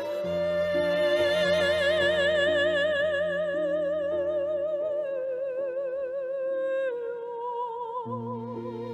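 Music: an operatic-style voice singing long held notes with wide vibrato over a soft instrumental accompaniment. The melody steps down twice, about five and seven seconds in.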